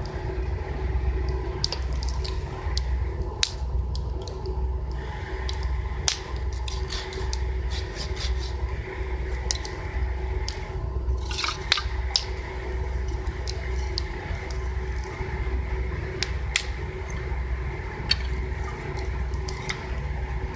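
Wood campfire crackling, with scattered sharp pops and snaps over a steady low rumble.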